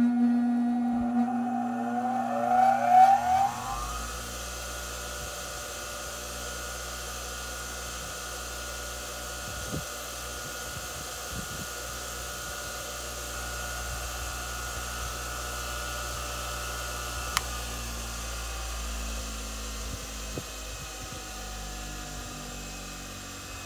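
Ryobi 6-inch bench grinder just switched on, spinning up to speed with a rising whine over the first few seconds. It then runs steadily with a high whine over a low hum, and there is a single click about two-thirds of the way through.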